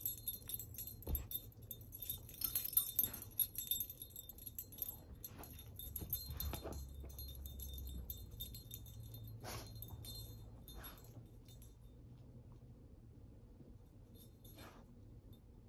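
Metal tags on a dog's collar jingling as she shakes and tears at a plush toy, with scattered light clicks. The jingling is busiest in the first few seconds and thins out to a few soft clicks as she settles down to chew.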